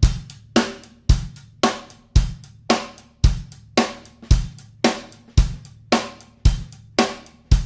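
Drum intro of a rock song: a drum kit plays a steady beat, kick and snare alternating about twice a second under ringing cymbals and hi-hat.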